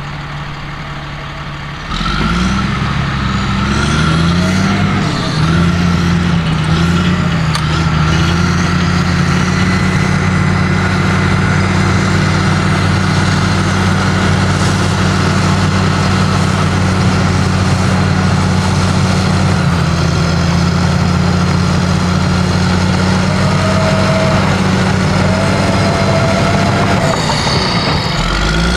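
Cat D6M LGP crawler bulldozer's diesel engine running under load while pushing soil. The engine comes up in level and pitch about two seconds in, wavers for a few seconds, then holds a steady working note.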